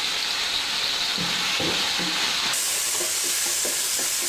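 Onion, tomato and ginger-paste masala sizzling in oil in an aluminium wok, stirred with a wooden spoon. The sizzle turns brighter and louder about two and a half seconds in, with a few light knocks of the spoon against the pan after that.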